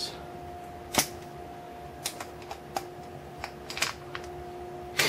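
Scattered light clicks and clacks of small metal screwdriver bits and tools being handled while a Torx bit is picked out, about eight irregular clicks. A faint steady hum runs underneath.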